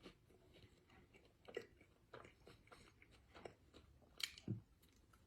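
A person chewing food with the mouth close to the microphone: faint, irregular wet clicks and soft crunches, with a few sharper bites.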